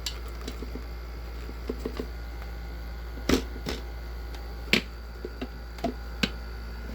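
Hard plastic clicks and knocks as the dust bin of a Hoover Air Steerable vacuum cleaner is handled and opened, a scattering of short sharp clicks with the loudest about a third and two-thirds of the way through, over a steady low hum.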